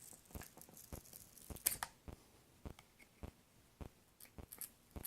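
Adhesive-backed control panel overlay peeling away from a metal detector's control box, a crackling like tape pulling off, loudest about a second and a half in. A steady tick repeats beneath it a little under twice a second.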